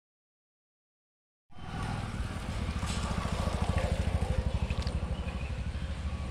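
A small engine running steadily at idle, a low rumble with a fast, even pulse, starting about a second and a half in after silence.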